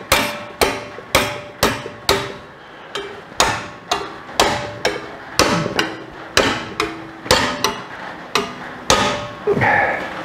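Ball-peen hammer striking a steel plate on a bench vise's anvil, bending its flange over, at about two blows a second. Each blow gives a short metallic ring.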